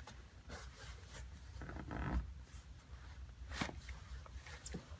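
Soft rustling and scraping from hands handling sneakers and their laces, with a few light clicks and a longer scratchy stretch about two seconds in.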